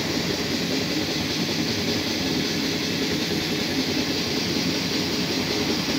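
Engine oil flushing machine running steadily, its pump circulating cleaning solution through the engine and filter: an even mechanical hum and whir with no change in pitch.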